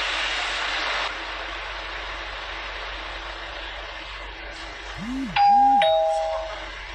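A two-note 'ding-dong' chime, like a doorbell: a higher note, then a lower one ringing out and fading, preceded by two quick low swoops. It sits over steady background noise that drops a little about a second in.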